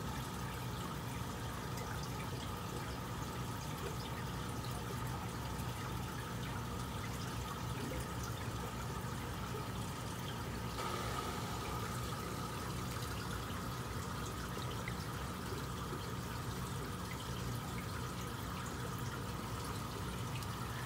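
Aquarium filtration running: water trickling and bubbling over a steady low hum.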